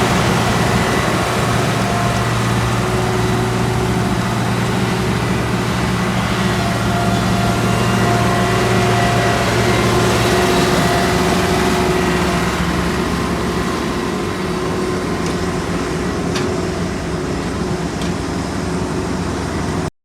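Diesel engines of heavy asphalt-paving machinery running steadily, a continuous low hum with steady tones. One low drone drops out about halfway through, and there is a single sharp tick near the end.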